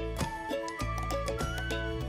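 Background music with a steady beat, a bass line and a simple melody.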